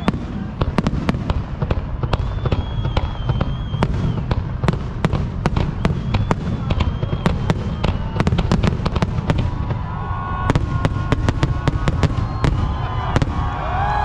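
Fireworks going off: a rapid, irregular run of sharp bangs and crackles over a steady low rumble.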